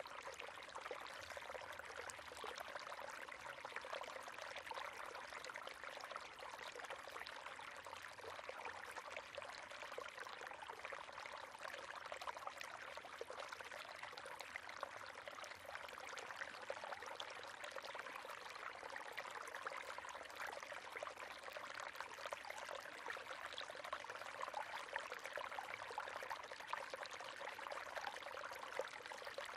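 River water running over stones: a steady, even splashing and gurgling with no breaks.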